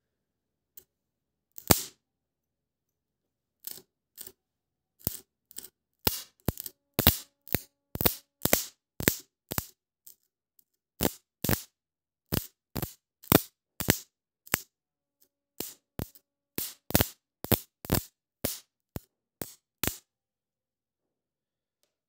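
Electric spark snaps from two bare wire ends, fed from a capacitor charged by the generator's stator, being touched together: a long run of sharp, irregular cracks, sometimes two a second, that stops a couple of seconds before the end.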